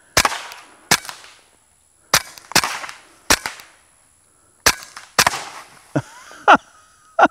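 Suppressed KelTec P17 .22 LR pistol firing CCI Clean 22 ammunition: about nine sharp, fairly quiet cracks at uneven intervals, as hanging soda bottles are hit.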